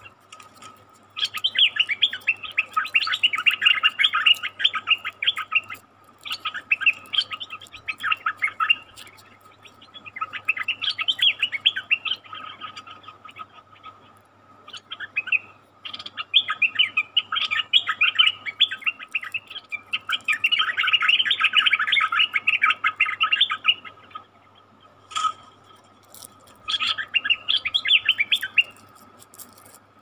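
Stripe-throated bulbuls singing in repeated bursts of rapid, bubbling chatter, each a few seconds long, about seven bursts with short gaps between, over a faint steady high tone.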